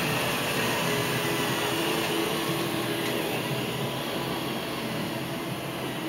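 iRobot Roomba robot vacuum running with a steady whir.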